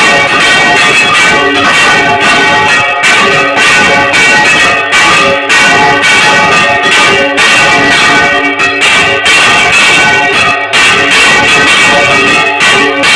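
Several church bells swung full circle by hand in a general peal (volteo), ringing loudly with many overlapping strikes, heard close up inside the belfry. The peal announces the town's fiesta.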